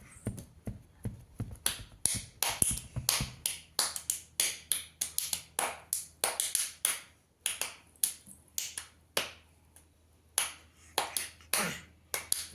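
A quick, uneven run of sharp taps or clicks, about three a second, each dying away quickly.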